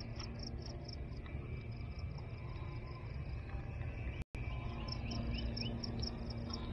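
Outdoor ambience: steady low background noise with insects chirping rapidly and evenly, several high chirps a second. The sound cuts out for a split second about four seconds in.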